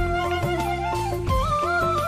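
Background music: a flute-like melody moving in held steps, over deep bass hits that drop in pitch, one just at the start and another about a second and a half in.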